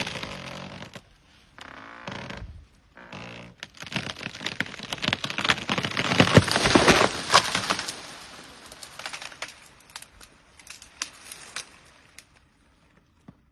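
Tree wood and foliage cracking, snapping and rustling as an elephant pushes and breaks a tree. It builds to a dense run of cracks in the middle, then thins to a few scattered snaps and fades out.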